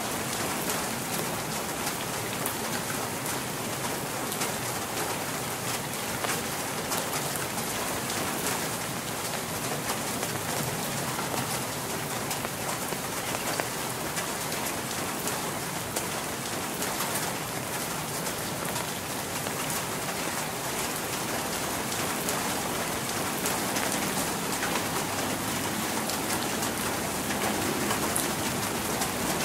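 Steady rain falling: an even hiss with many single drop ticks running through it, at a constant level.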